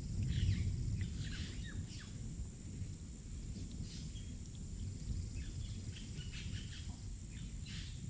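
Electric diamond core drill grinding a hole into soft sandstone: a steady low rumble, with birds chirping on and off.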